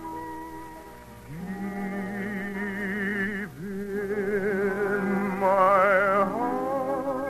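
Orchestral operetta music with operatic singing: sustained notes with heavy vibrato, and a high held note with strong vibrato that swells to the loudest point a little past the middle.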